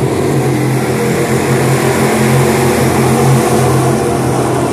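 A pack of dirt-track Crate Sportsman stock cars racing past, their V8 engines droning together at speed with a steady, loud hum that swells a little past the middle.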